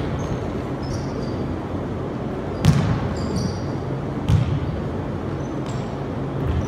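Basketball bouncing on a gym floor during one-on-one play, a few sharp bounces with the loudest about two and a half seconds in, and sneakers squeaking briefly on the floor.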